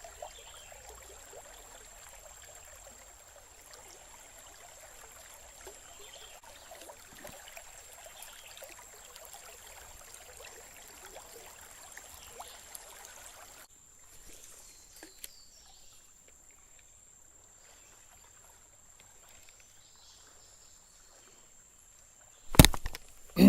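Creek water running, a steady rushing hiss that drops suddenly to quieter outdoor background about fourteen seconds in. Near the end a single sharp loud knock stands out.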